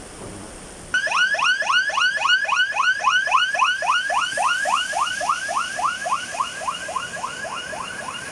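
Electronic siren of a civil-protection pickup, sounding quick rising sweeps of about four a second that start suddenly about a second in. Before it, a steady hiss of heavy rain.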